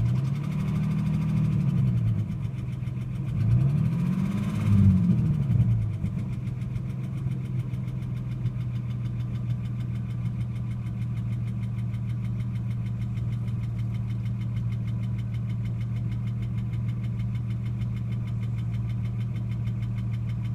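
Ford Falcon AU XR6 inline-six engine idling, blipped twice in quick succession in the first six seconds, the pitch rising and falling each time, then settling back to a steady idle.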